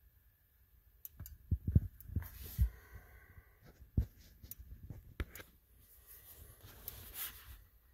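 Handling noise from a hand-held camera: after a second of near silence, a scatter of soft low thumps and rubbing, with a few sharper knocks.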